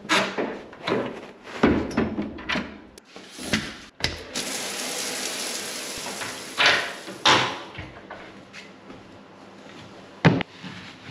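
Knocks and rustling in a small tiled shower block: a shower curtain brushed aside and cubicle doors knocking. After an abrupt cut there are a few seconds of steady hiss, then two more knocks and a single sharp thump near the end.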